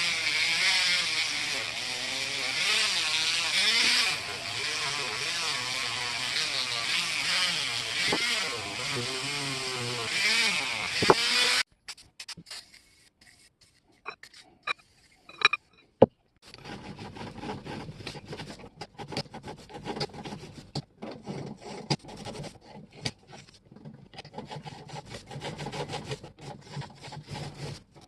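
A small power tool runs with a wavering pitch, as if under changing load, and cuts off abruptly about twelve seconds in. After a few isolated clicks, hand work follows: rubbing and scraping on metal with scattered small clicks.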